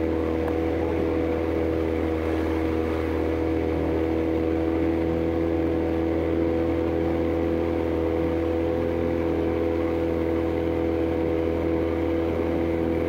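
Aluminum fishing boat's motor running at a steady cruising speed, one even drone that holds its pitch throughout, with rushing wind and water noise over it.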